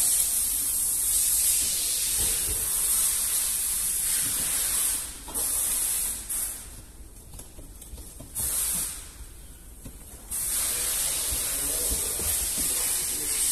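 Steady high hiss of slip solution being sprayed for window-tint film. It cuts out for about two seconds past the middle, starts briefly, then stops again for another two seconds before running on.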